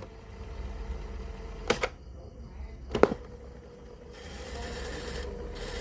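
A few sharp mechanical clicks, about a second and a half apart, over a steady low electrical hum, with hiss swelling in the second half.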